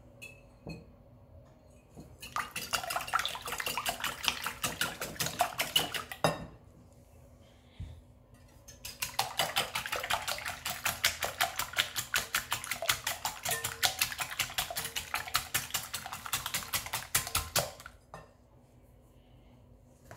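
Wire whisk beating raw eggs in a glass bowl: a rapid, even clicking of the wires against the glass with wet sloshing, in two bouts, a short one of about four seconds and, after a pause of about three seconds, a longer one of about nine seconds.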